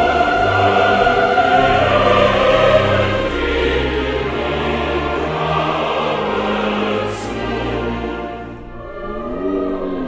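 Classical choral music with orchestra: a choir holding long sung notes over strings, quieting over the last two seconds.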